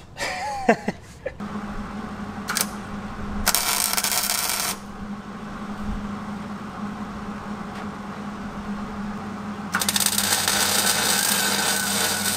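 Arc welding on the steel steering-gearbox mounting plate: a short tack about two and a half seconds in, a weld of about a second, then a longer weld starting near ten seconds, all over a steady low hum.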